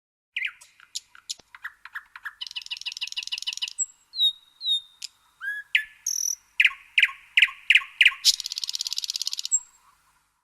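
A songbird calling: a series of sharp chirps and short slurred whistles, broken by two fast, buzzy trills, the second one near the end being the loudest.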